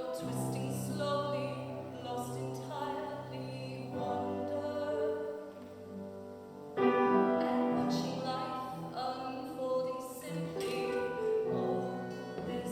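Live acoustic music, the opening of a song before the lyrics begin: stringed instruments sounding held, ringing chords, growing louder with a strong new chord about seven seconds in.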